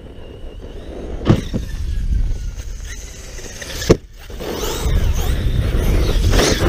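Arrma Talion 6S RC truck's brushless motor whining up and down in pitch as it is driven over rough dirt, with two sharp thumps of the truck hitting the ground, about a second in and again near four seconds in, the second the loudest.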